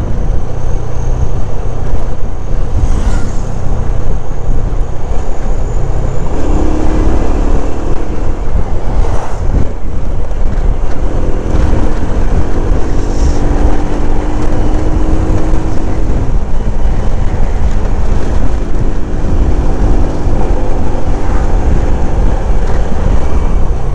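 Wind rushing over the action camera's microphone on a moving motorcycle, a heavy steady rumble over the engine and road noise. An engine hum comes through more clearly in the middle.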